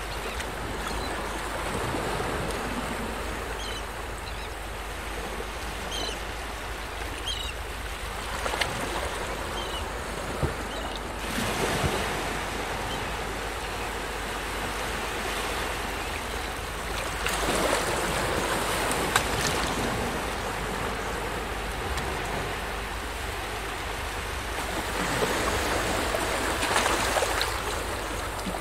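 Sea waves washing in, a steady rushing noise that rises and falls in swells several seconds apart.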